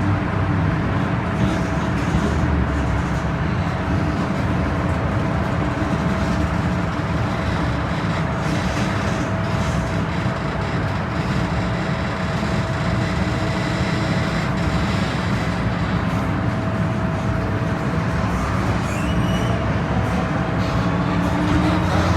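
MTR M-Train electric multiple unit running steadily between stations, a continuous rumble of wheels and running gear with a faint steady whine that fades near the end.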